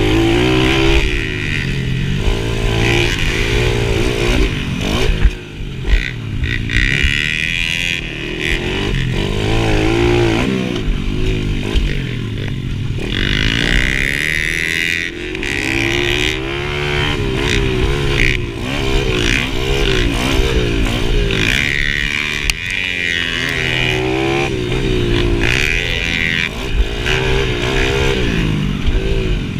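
A small dirt bike's engine heard from on board while racing. It revs up and down over and over as the throttle opens and closes through the track's corners and straights.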